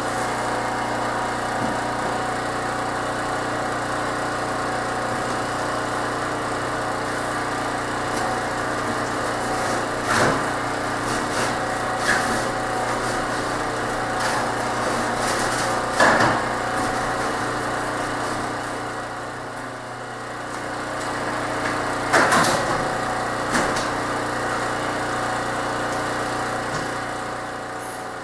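Steady hum of a running motor, with sharp knocks and clanks five times or so as a new aluminium tube is worked into the ultralight's airframe.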